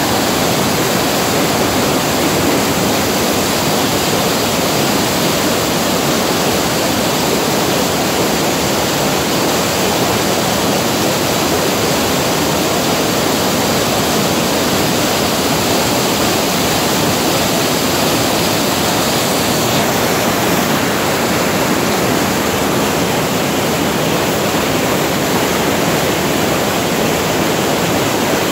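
Loud, steady rushing of the Swat River's white water tumbling over boulders in fast rapids.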